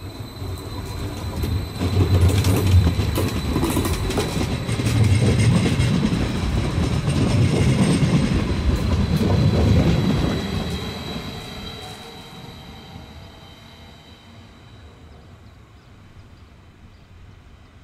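Stadler Flirt electric multiple unit pulling out and running past on the rails. It grows louder over the first two seconds, stays loud for about eight seconds, then fades away.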